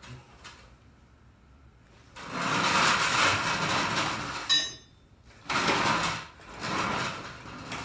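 A drawer sliding and tools being rummaged through, with a short metallic clink of a tool about halfway through.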